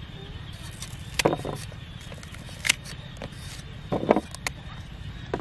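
Knife cutting wedges off a firm, peeled Taiwan apple mango, with a few short sharp cuts a second or so apart.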